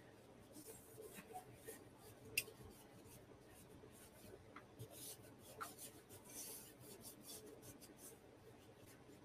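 Faint rubbing and scuffing of a soft shop cloth wiping the painted finish of a vintage sewing machine, with a small click about two and a half seconds in.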